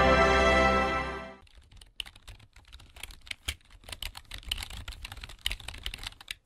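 Intro music fades out over the first second and a half. Then comes a run of quick, irregular computer-keyboard typing clicks, a typing sound effect for on-screen title text being typed out.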